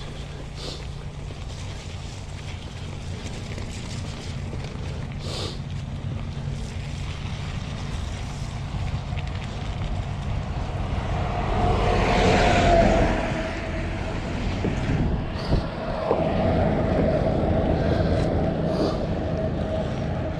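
Mountain bike rolling along a trail: a steady rumble and rattle of tyres and frame, with wind noise on the microphone. It grows louder a little past halfway, and a steady hum runs on from then.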